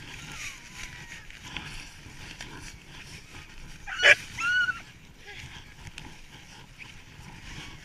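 Harnessed Alaskan sled huskies making faint short whines and yips. About four seconds in comes one sharp, loud bark, followed by a brief high whine.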